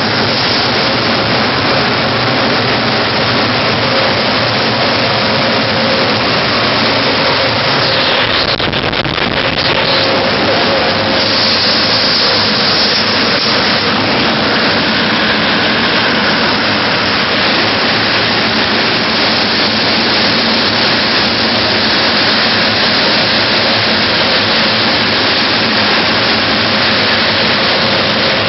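Red centrifugal blower for an agricultural-produce dryer running: a steady, loud rush of air with one constant tone in it.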